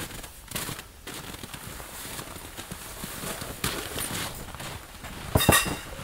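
Irregular crunching footsteps in hard, very cold snow, with light scrapes and knocks as someone steps into a canvas bell tent, and a sharper clatter near the end.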